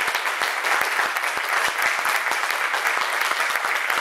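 Audience applauding: a steady patter of many hands clapping.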